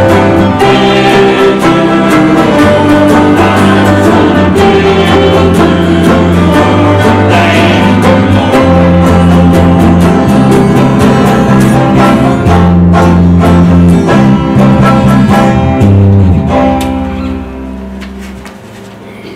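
Church worship band playing a song, with guitar and bass carrying sustained chords. The music ends about three-quarters of the way through, its last chord dying away.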